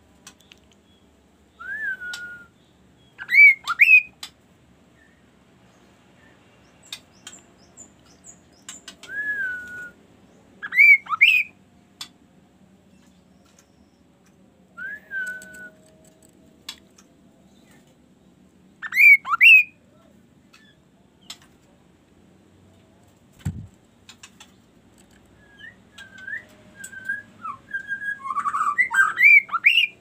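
Caged kaso-kaso songbird whistling: a short falling note followed by a pair of loud rising whistles, repeated three times about eight seconds apart, then a faster run of varied whistles and chatter near the end. A single dull thump about two-thirds of the way through.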